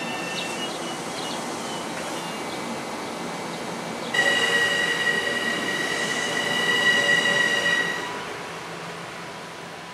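LIRR M7 electric train cars rolling past at speed. About four seconds in, a loud steady high-pitched wheel squeal sets in and holds for about four seconds, then stops, and the rolling noise fades as the train draws away.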